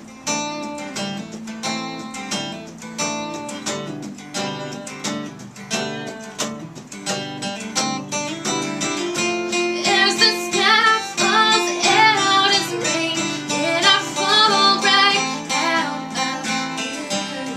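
Acoustic guitar strumming an instrumental passage of a live song, with a wordless sung melody coming in about ten seconds in and fading out near the end.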